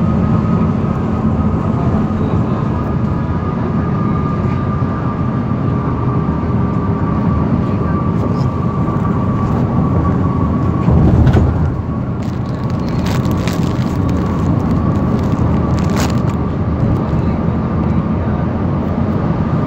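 Steady road and engine noise inside a vehicle cruising on a highway, with a thin steady whine throughout. A brief louder rush comes about eleven seconds in, and a few light clicks follow.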